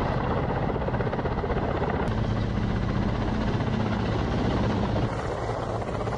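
Military helicopters hovering low at close range: steady, dense rotor and engine noise with a fast, even rotor beat.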